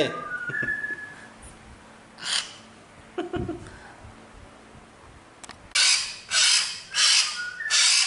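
Hill myna giving a short whistled call of a few level notes near the start. Near the end it makes a run of loud, harsh rasping calls, about two a second.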